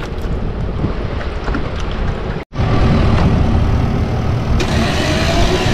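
Steady wind and water noise on a camera held at the water's surface. After a sudden break about two and a half seconds in, a louder low rumble with a faint steady motor hum.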